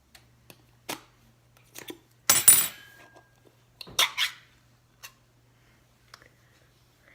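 Clinks, taps and scrapes of cutlery on dishes as a cat's food is served. The loudest is a short, harsh scrape about two and a half seconds in, with another about four seconds in, over a faint steady low hum.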